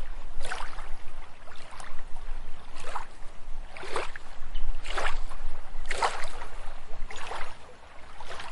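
Water splashing and lapping in a steady rhythm, about one splash a second, over a continuous wash of moving water.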